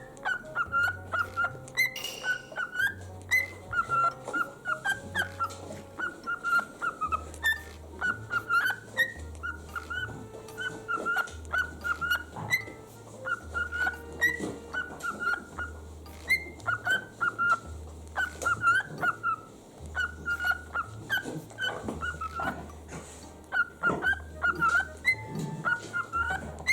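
Pet parrots, a cockatiel and a sun conure, chirping in quick clusters of short, high calls over background music with a stepping bass line.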